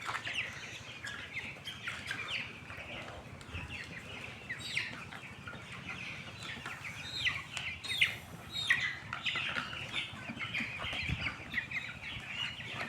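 A flock of chickens chirping and cheeping continuously while crowding a drinker for vaccine water, with a sharp knock about eight seconds in.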